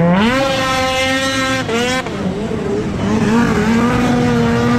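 Snowmobile engine revving up and held at a steady high pitch as the sled skims across open water. About two seconds in that pitch falls away, and another snowmobile engine climbs and holds high.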